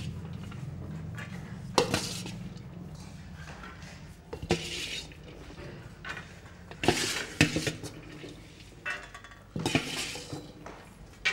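Stainless steel serving bowl, plates and tumblers clinking and scraping as food is served out, with a sharp clink every second or two. A low hum sounds under the first few seconds.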